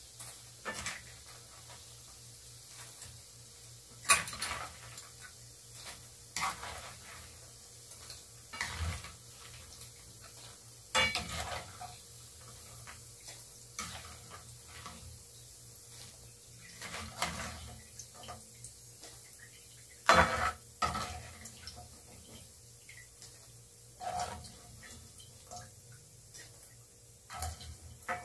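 Ladle knocking and scraping against a frying pan and a wire-mesh strainer as fried tofu cubes are scooped out of oil. The clinks and knocks are scattered every few seconds, the loudest about 4 seconds in and again about 20 seconds in.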